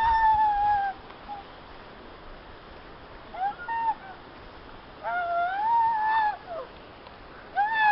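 A dog howling: several drawn-out, steady-pitched howls with short quiet gaps between them.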